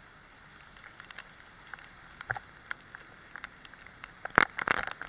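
Hurricane wind and driving rain, faint and muffled, with scattered sharp ticks and knocks close to the microphone and a loud cluster of them about four seconds in.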